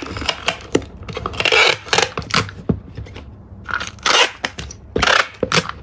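Packing tape being pulled off a handheld tape dispenser onto a box and torn off on the dispenser's serrated blade: several noisy rips, with a few small knocks of the dispenser against the box in between.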